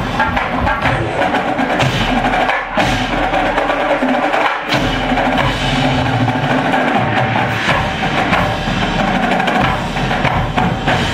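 Marching ensemble playing loud music dominated by percussion: drums and front-ensemble mallet keyboards, with a few sharp accented hits.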